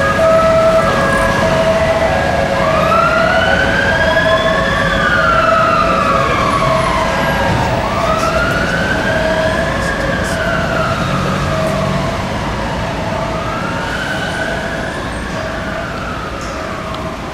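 Fire engine siren on the wail tone: slow rising and falling sweeps about every five seconds, gradually fading as the engine moves away, over street traffic.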